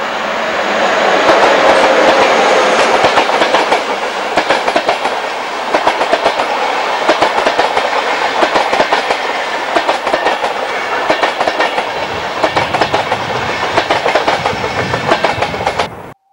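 Electric-hauled passenger train passing close by. Its coach wheels clatter over the rail joints in a steady clickety-clack, loudest about two seconds in, and the sound cuts off suddenly near the end.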